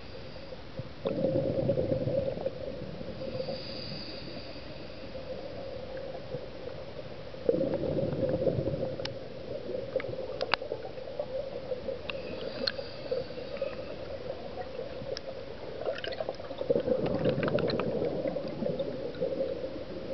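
Underwater scuba breathing: a diver's regulator venting exhaled air as three bursts of bubbling, each about two seconds long and roughly seven seconds apart, the rhythm of slow breathing, with scattered small clicks in between.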